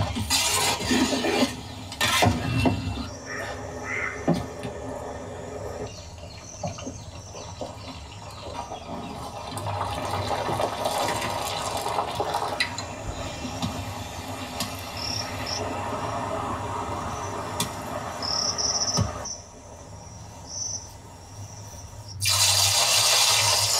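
Open-air cooking sounds: wet hand-mixing of marinated chicken, then chicken pieces deep-frying in a large pot of oil, with a few short high chirps in the background. About 22 seconds in, loud splashing starts as a hand works sliced onions in a bowl of water.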